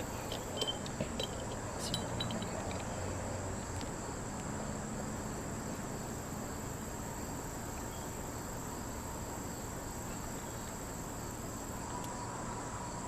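Steady high-pitched drone of insects, with a few light clicks in the first couple of seconds.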